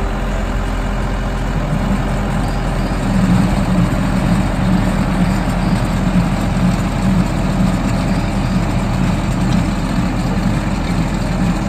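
Tractor engine running steadily with a low, even drone that grows a little louder about two seconds in.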